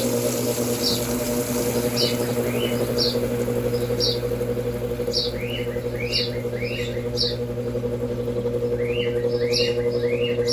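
Brastemp Double Wash washing machine's motor running steadily in a spin cycle, a constant hum; the owner says the motor is badly misaligned. Over it a bird chirps repeatedly, short high chirps about once a second, joined by lower arching calls in the second half.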